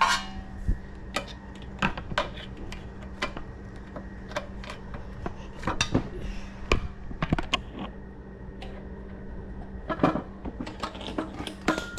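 Scattered metallic clicks and clinks of a bolt and hand tools being handled as the bolt is fitted and tightened, irregular rather than a steady ratchet rhythm, over a faint steady hum.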